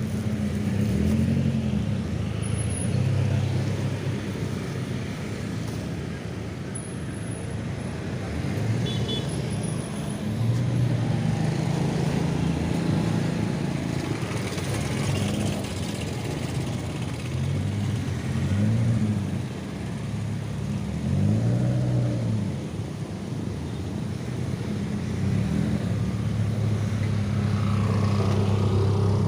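A vehicle engine running continuously, its pitch rising and falling several times as it speeds up and slows.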